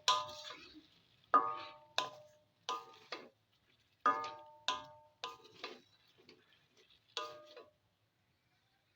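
A utensil stirring chutney in a kadai, knocking against the pan about a dozen times at an uneven pace. Each knock rings briefly like metal. The knocking stops about a second before the end.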